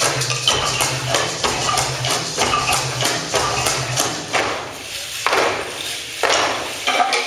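Folk dancers' zapateado footwork: a fast, dense run of stamping heel and toe strikes on the stage, with a few heavier stamps spaced about a second apart in the second half.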